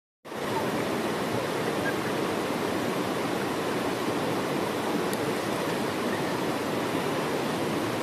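Steady rush of a tall waterfall cascading down rock slabs, heard close by. It comes in sharply a fraction of a second in and then holds even.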